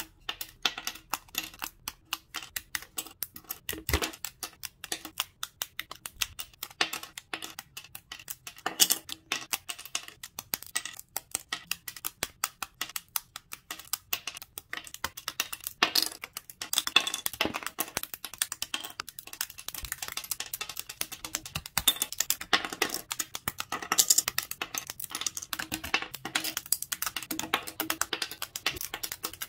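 Quick irregular clicks, snaps and taps of thin laser-cut plywood as small parts of a ROKR Heavy Truck wooden 3D puzzle are pressed out of their sheets and handled.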